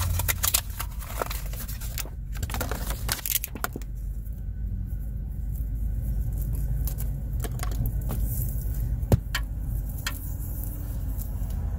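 Plastic packaging crinkling and clicking as a new audio cable is unwrapped, then the coiled cable being handled, with scattered sharp clicks. The rustling is densest in the first few seconds, over a steady low rumble.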